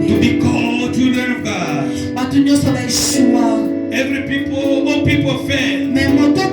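Church worship music: sustained held chords with a voice singing over them.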